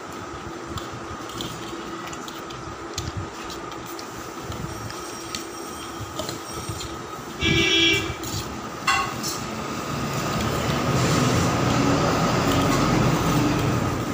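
A loud horn blares for about half a second midway. After it, a low rumble grows louder, like heavy traffic or a train passing close by. Light clinks of a fork on a steel plate sound throughout.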